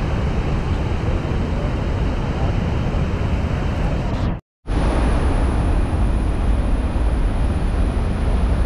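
Steady, loud rushing of a large waterfall in monsoon flood. The sound cuts out for a moment just after the middle, then goes on unchanged.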